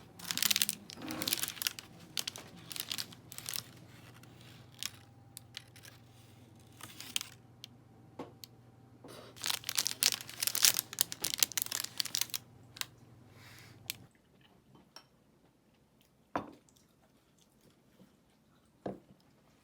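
A plastic snack wrapper being crinkled and torn open, in two long stretches of crackling, then a few soft clicks.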